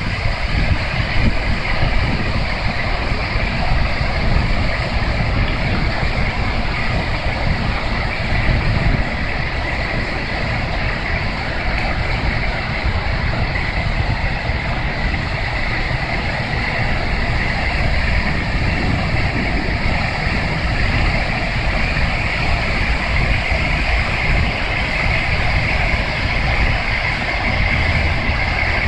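Buckingham Fountain's water jets rushing and splashing down into the basin: a steady hiss of falling water, with a low rumble underneath that eases after about nine seconds.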